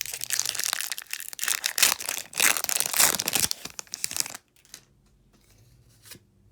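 Pokémon booster pack's foil wrapper being torn open and crinkled in the hands, a dense crackling that stops about four seconds in.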